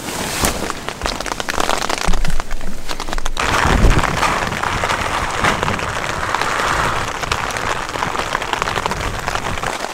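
Pouring rain pattering steadily, a dense spray of small drop impacts, with some low thumps about two to four seconds in.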